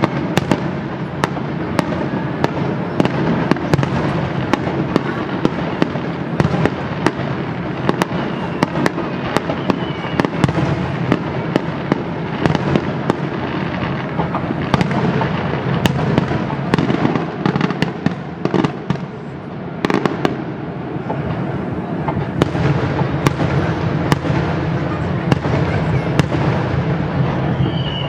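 Aerial fireworks going off in a dense barrage: a continuous rumble with many sharp cracks and crackles in quick succession.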